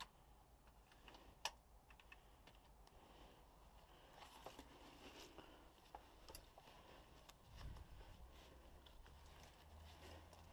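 Near silence, broken by faint scattered clicks and ticks, one a little louder about one and a half seconds in.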